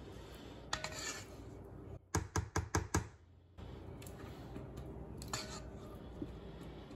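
Rubber spatula scraping ricotta cheesecake batter out of a metal mixing bowl into a springform pan, with short scrapes. About two seconds in comes a quick run of five sharp knocks.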